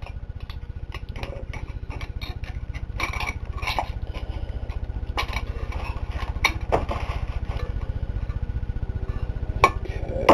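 Metal clutch plates and steels from a Ford C4 automatic transmission clinking and clattering as they are handled and lifted out of the clutch drum, with two sharper clinks near the end. A steady low hum runs underneath.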